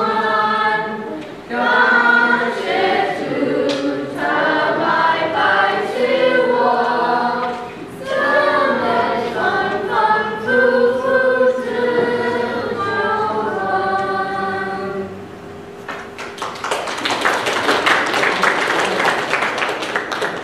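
Children's choir singing a song together, which ends about fifteen seconds in; the audience then applauds for the last few seconds.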